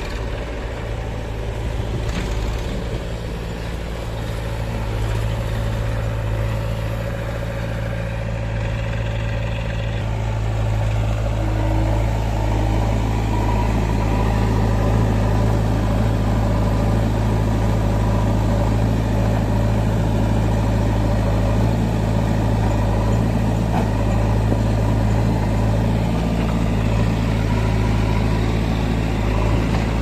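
Diesel engines of a Massey Ferguson tractor and a JCB 3DX backhoe loader running steadily side by side, growing somewhat louder about a third of the way in.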